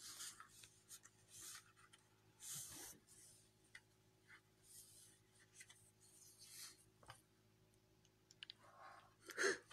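Near silence, with faint rustling and rubbing sounds every second or two and a few soft clicks.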